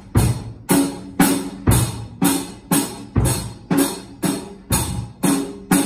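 Acoustic drum kit played in a steady, even beat of about two strokes a second, each stroke with a ringing cymbal wash. A heavier, deeper hit falls about every three seconds.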